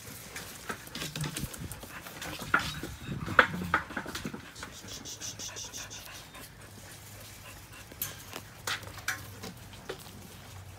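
Australian Shepherd puppies panting and scuffling close by, with a string of short clicks and knocks, the loudest about three and a half seconds in.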